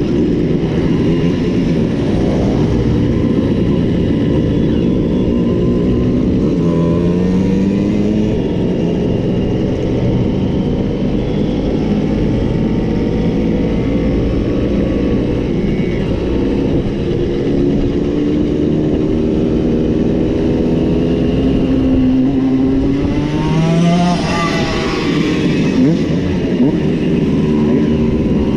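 Several Simson single-cylinder two-stroke mopeds riding together, their engines rising and falling in pitch as they speed up and ease off. Near the end one engine revs briefly, its pitch sweeping up and back down.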